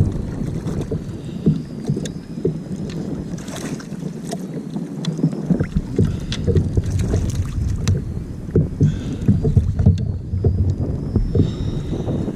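Wind rumbling on the microphone, with water splashing and knocking against a sea kayak's hull in short, irregular knocks.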